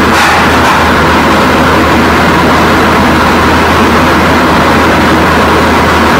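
A steady, loud rushing noise with a low hum underneath, unchanging throughout.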